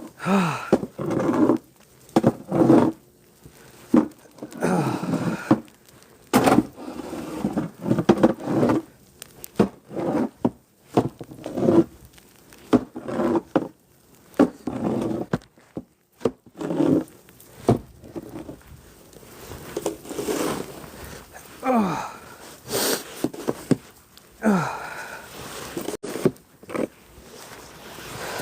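Snow shovel scraping and scooping in repeated, irregular strokes, mixed with the shoveller's heavy breathing and short voiced exhalations.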